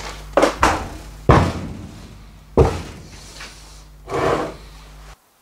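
Heavy metal clunks and knocks, about four sharp ones and then a rougher scraping clatter, as a cast-iron hand arbor press is set down and shifted into place on a wooden workbench. A steady low hum runs underneath, and all of it cuts off abruptly near the end.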